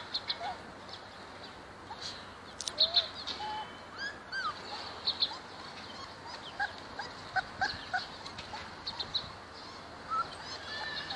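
Young puppies whining and squeaking: many short high squeaks and a few short rising-and-falling whines, scattered irregularly throughout.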